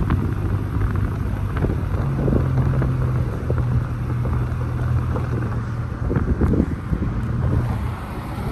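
Car driving slowly on a paved street with the window open: a steady low engine hum and tyre rumble, with wind buffeting the microphone in irregular gusts.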